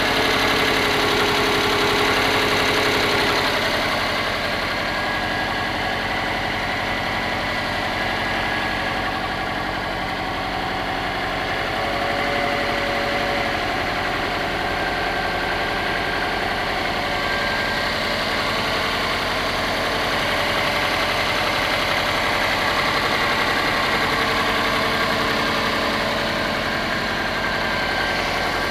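Subaru EJ205 turbocharged 2.0-litre flat-four idling steadily with a rapid, regular knock. The owner cannot tell whether the knock comes from the fourth cylinder or from something else, though the timing belt kit and consumables are new.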